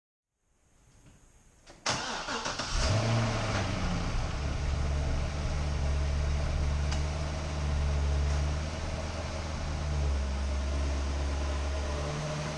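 C6 Corvette's V8 being started: it cranks and catches about two seconds in, flares briefly, then settles into a steady, deep idle through its exhaust.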